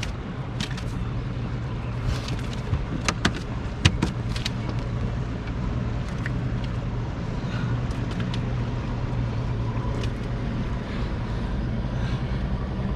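Boat motor running steadily with a low hum, with several sharp clicks in the first few seconds.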